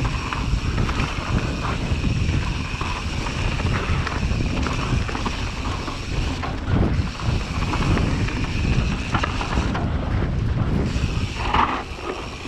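Wind rushing over the camera microphone and the tyres of a Yeti SB150 full-suspension mountain bike rolling fast over a dirt and leaf-strewn trail, with frequent small rattles and knocks from the bike as it descends.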